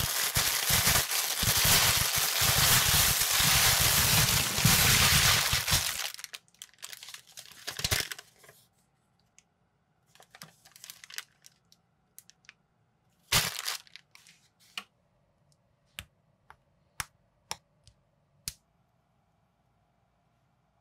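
Clear plastic bag of building bricks crinkled and torn open for about six seconds, loud and crackling. Then quieter rustles of paper and plastic. Near the end comes a run of short sharp clicks, about two a second, as small plastic minifigure parts are pressed together.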